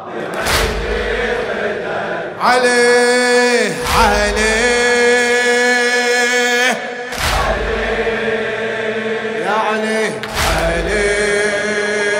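Shia mourning lament (latmiyya): a man's voice chanting long, drawn-out notes over a microphone, with the mourners' chest-beating landing in unison as four heavy thuds about three seconds apart.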